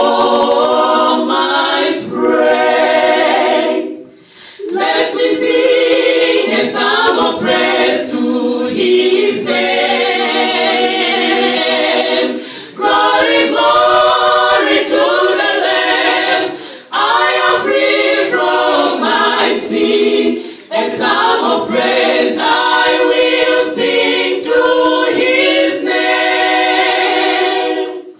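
Women's a cappella gospel group singing a hymn in harmony without instruments, in long phrases broken by short pauses for breath.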